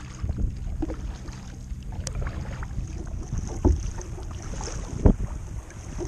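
Wind rumbling on the microphone over water sloshing against a kayak hull, with two dull thumps in the second half.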